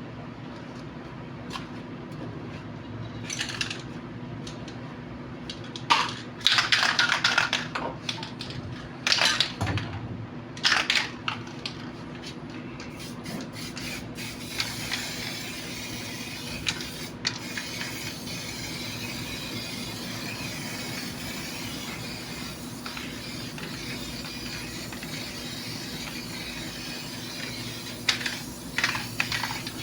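Spraying: several short hissing bursts, then a steady hiss lasting about fourteen seconds, then more short bursts near the end, over a low steady hum.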